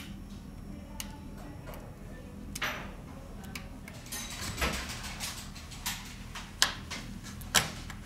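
Small hand tools and phone parts being handled: scattered light clicks and scraping, with a stretch of scraping after the middle and two sharp clicks near the end.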